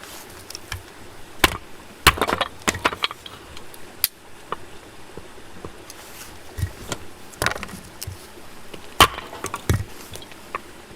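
Wood campfire crackling: irregular sharp pops and snaps of burning wood over a soft steady hiss, with a quick run of snaps about two seconds in.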